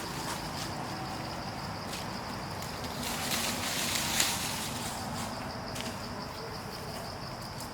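Insects in the forest keeping up a steady high-pitched drone over a low outdoor rumble, with a short burst of rustling and a sharp click a little after the middle.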